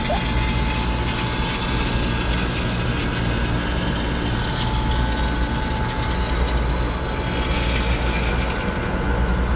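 Water rushing with a steady hiss through cooling-tower copper piping as a valve is slowly opened, over a steady low hum. The hiss eases near the end.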